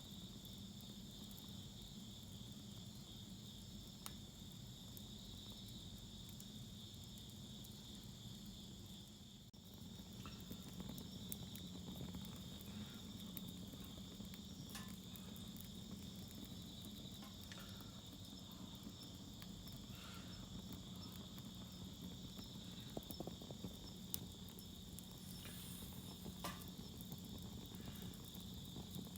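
Burning firewood crackling faintly, with scattered sharp pops that grow more frequent about ten seconds in, over a steady high chirring of insects.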